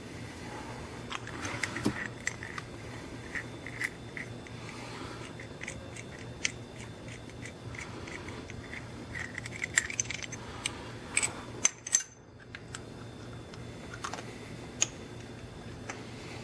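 Light metallic clinks and clicks of removed Cummins fuel injectors and hand tools being handled, at irregular times, with a few sharper clinks about ten to twelve seconds in. A steady low hum runs underneath.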